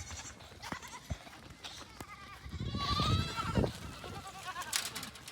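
A goat bleating once, a long call with a wavering pitch about two and a half seconds in, with a few small knocks around it.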